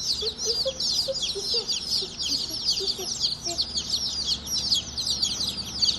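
A crowd of day-old chicks peeping nonstop, many shrill high chirps overlapping.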